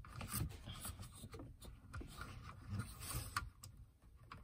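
Fingers rubbing and scraping on the plastic housing of a car's overhead map light assembly while a new rocker switch is worked into its slot, with a couple of light plastic clicks about three and a half seconds in.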